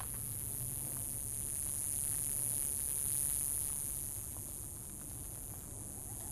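Steady low rumble under a constant high hiss, louder in the first few seconds, with only a few faint ticks of footsteps on the rocky trail.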